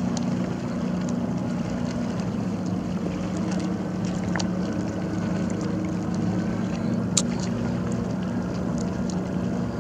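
A motorboat's engine drones steadily across the water, with small waves splashing lightly at the shore close by.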